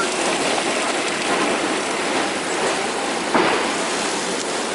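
Liquid poured into a large hot paella pan of frying onions, hissing and sizzling loudly as it boils off, while a wooden spoon stirs the pan. A brief louder burst comes about three and a half seconds in.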